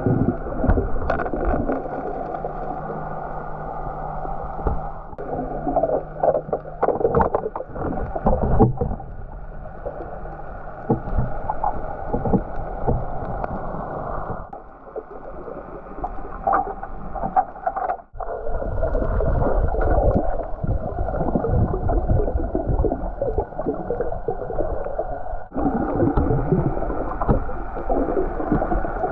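Muffled underwater sound picked up through a camera's waterproof housing: a dull rumble of moving water with scattered knocks and scrapes from handling, and a steady low hum through the first several seconds. The sound shifts abruptly several times.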